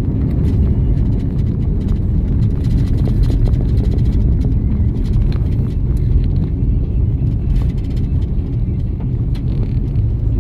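Car driving, a steady low rumble of engine and tyres on the road, with scattered small clicks and knocks.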